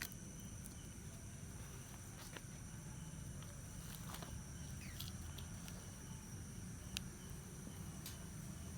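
Faint, steady high-pitched insect chirring over a low hum, with a few light clicks and taps scattered through.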